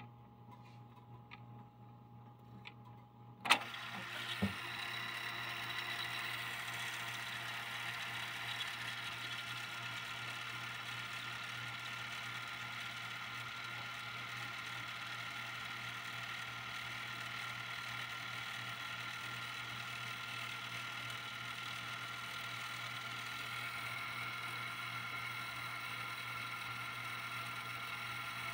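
Luxman K-220 cassette deck rewinding a tape. A sharp click of the transport key comes about three and a half seconds in, with a lighter click a second later. Then the motor and reels whir steadily, their whine edging up in pitch near the end.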